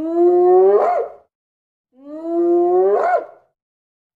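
Spotted hyena calling twice, each call about a second and a half long, holding a low steady pitch and then rising sharply and falling off at the end.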